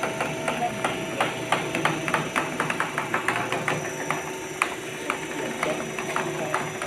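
Irregular sharp clicks and knocks, several a second and busiest in the first half, over the steady hum of an aluminium arch-bending machine.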